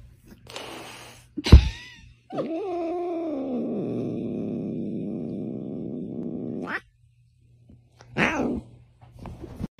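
Domestic cat growling. A short loud outburst comes about a second and a half in, then a long growl lasting about four seconds that starts higher and settles lower, then another short outburst near the end.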